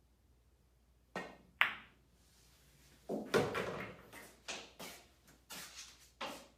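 Pool balls being played: a cue strike, then a sharp ringing click of ball on ball, followed by a run of knocks and clacks as the balls hit each other and the cushions.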